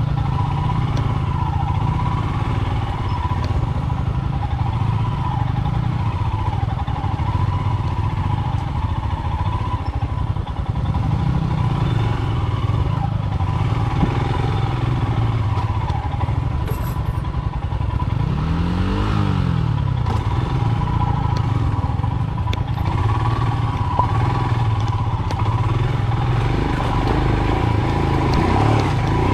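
Royal Enfield Himalayan's single-cylinder engine running steadily at low speed on a rocky dirt trail, heard from on the bike, with its pitch dipping and rising briefly a little past the middle.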